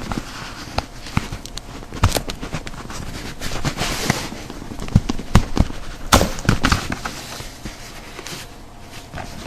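Pry tool being worked along the seam of a first-generation iPod Touch, prying the front apart from the back cover: an irregular run of sharp clicks and short scrapes, the loudest clicks a few seconds in, quieter near the end.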